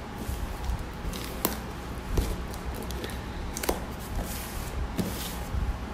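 Scissors snipping and scraping at the packing tape of a cardboard box, with scattered clicks, taps and scuffs as the box is pressed and handled, over a steady low hum.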